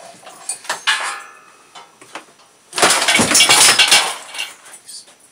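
Light metal clinks with a short ring about a second in, then about a second of loud clattering and rattling of metal tools and hardware being rummaged and handled.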